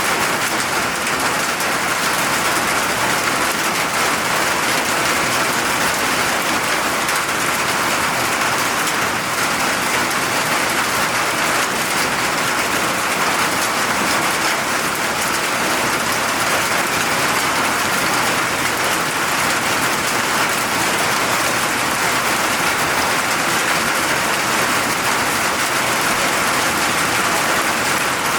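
Steady rain falling, a constant even hiss of drops on surfaces.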